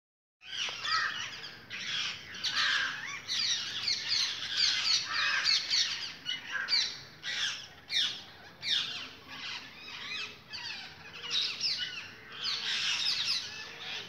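A flock of parrots calling from the trees: many short calls overlapping, most sliding quickly downward in pitch, one after another with no break.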